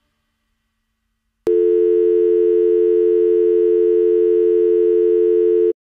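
A single steady electronic tone, mid-low in pitch and dial-tone-like, starting abruptly about a second and a half in and cutting off suddenly about four seconds later.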